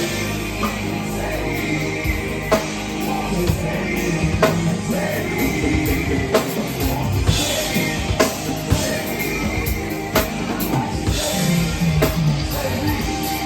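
Song playing loud with a steady drum beat, a sharp drum hit about every two seconds, and some singing over it.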